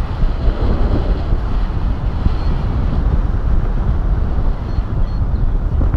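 Airflow of a paraglider in flight buffeting the camera microphone: a loud, steady, low rushing.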